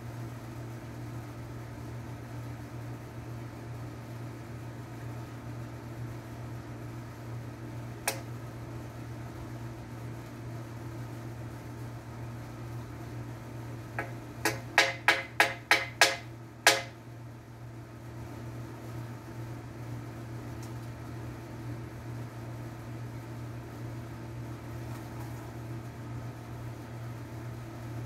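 A quick run of about seven sharp, ringing strikes, about three a second, as nails are driven into the wooden shed framing, after a single sharp click earlier. A steady low hum runs underneath throughout.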